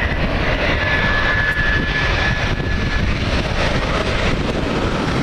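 Twin-engine jet airliner flying low overhead with its landing gear down on approach: a steady, loud jet engine noise, with a thin high whine through the first few seconds.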